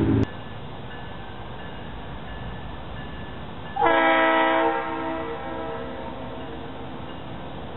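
Leslie RS3L three-chime locomotive air horn sounding one short blast about four seconds in: a chord of several tones, held about a second, then trailing off in an echo.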